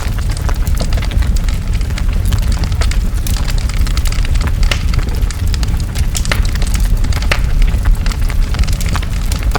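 Large wood fire burning, with a steady low roar of flames and frequent sharp crackles and pops.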